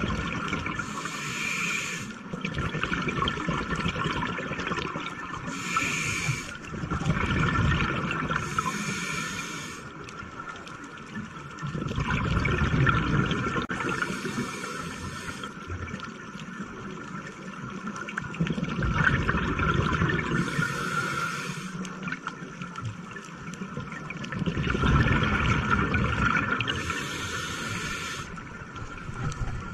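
Scuba diver breathing underwater through a Cressi regulator: a short hiss on each inhale, then a longer rush and gurgle of exhaust bubbles on each exhale. The slow breaths come about every four to six seconds.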